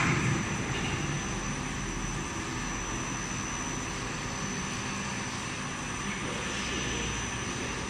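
Carpet washing machine running: a steady mechanical drone with a faint, steady high whine over it.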